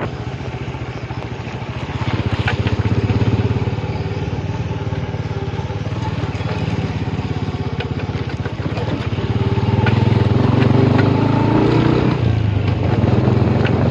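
Motorcycle engine running while riding. The revs climb from about nine seconds in and drop back near twelve seconds.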